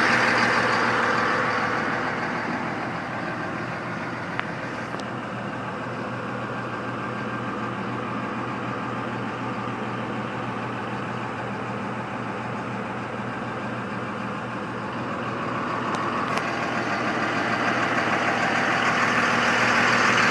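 Cummins 5.9-litre inline-six turbo diesel of a 2000 Dodge 3500 truck idling steadily. It is louder at first, quieter through the middle, and louder again near the end.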